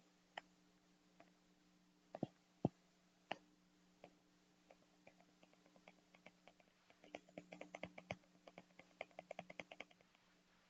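Light clicks and taps, a few scattered ones at first, then a quick run of many clicks in the last few seconds, over a faint steady hum.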